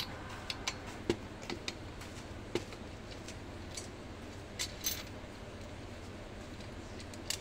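Small steel bolts, nuts and washers clicking and tapping against a steel frame tube as they are fitted by hand: a dozen or so scattered light clicks.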